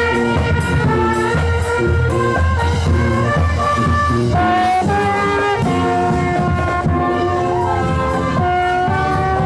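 Brass marching band playing a tune, held melody notes over a low sousaphone bass line.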